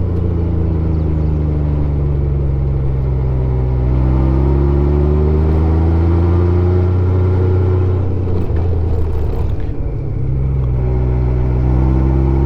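Honda Gold Wing GL1500's flat-six engine running under way, its note climbing steadily as it accelerates between about four and seven seconds in. About eight and a half seconds in the note breaks up briefly, then comes back at a lower pitch and climbs again.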